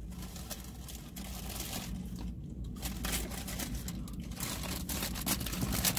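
Paper burger wrapper being unfolded and handled, crinkling and rustling in many small crackles over a low steady hum.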